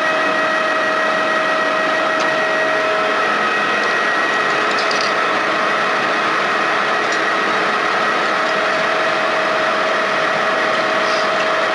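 Metal lathe running under power while a single-point tool cuts a thread along a half-inch shaft: a steady mechanical whine over even machine noise.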